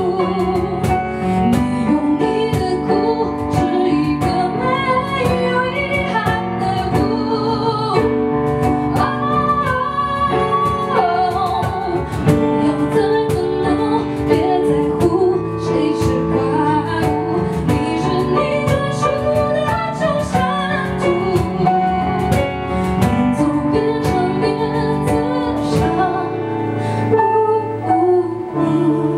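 A woman singing a slow song live, accompanied by a keyboard, an acoustic guitar and a hand drum, with some long held notes.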